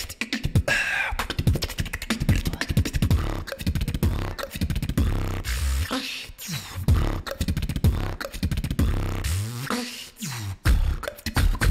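A solo beatboxer performing into a microphone: rapid kick and snare hits over a deep, sustained bass. About nine seconds in, the bass sweeps down and back up.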